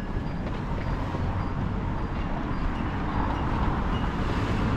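Suitcase wheels rolling fast over stone sidewalk paving on a downhill stretch: a steady rolling rattle.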